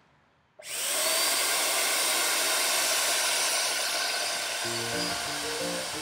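HomeRight Finish Max electric paint sprayer switching on about half a second in, its motor whining up to a steady loud whir and hiss as it sprays wood stain. Music comes in near the end.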